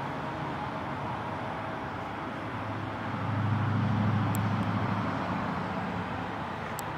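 Steady outdoor traffic noise, with a passing vehicle's low engine hum swelling about three seconds in and fading away over the next few seconds.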